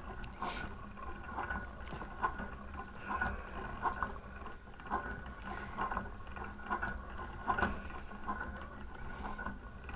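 Hand-cranked 3D-printed yarn spooler being turned, its printed plastic gears and crank giving a light, irregular clicking about once a second.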